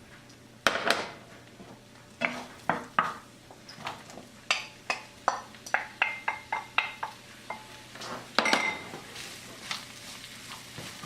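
Metal utensil knocking and clinking against a frying pan as vegetables are tossed and stirred in hot oil, with some sizzling underneath. The knocks come irregularly, a few ringing briefly.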